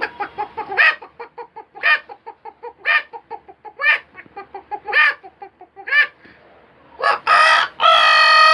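A man imitating a chicken with his voice: a run of quick clucks with a louder cluck about once a second, then a long rooster crow near the end.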